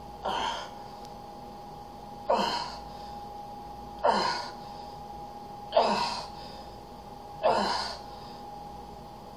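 A man's forceful breaths, one sharp puff with each dumbbell tricep kickback rep, five in all, about every second and a half to two seconds, over a steady faint hum.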